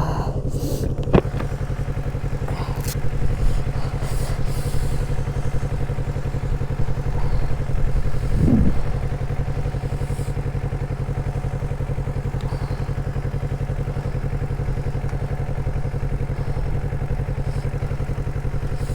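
Motorcycle engine running at a steady, even speed, with one sharp click about a second in.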